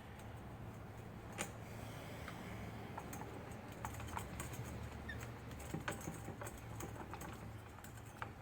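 Scattered light clicks and taps of small metal parts and hand tools being handled, over a steady low hum.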